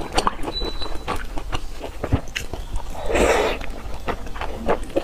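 Close-miked chewing of soft, soy-milk-soaked youtiao, with many short wet mouth clicks and smacks. A longer slurp comes a little after three seconds in.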